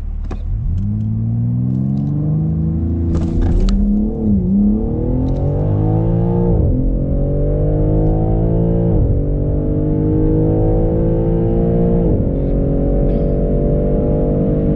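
Twin-turbo performance car engine at full-throttle acceleration, its pitch climbing through each gear and dropping at upshifts about four, six and a half, nine and twelve seconds in. A few sharp clicks sound in the first four seconds.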